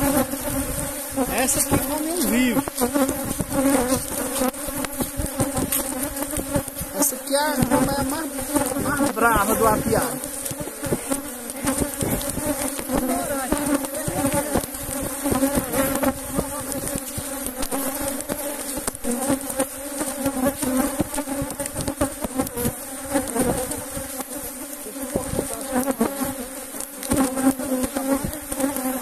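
Honey bees buzzing in a dense, steady drone around an opened hive, with single bees' pitch rising and falling as they fly close past.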